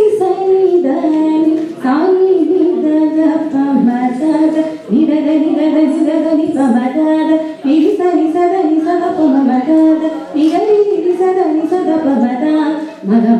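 A young woman singing solo into a handheld microphone, a melodic vocal line in phrases with brief pauses for breath.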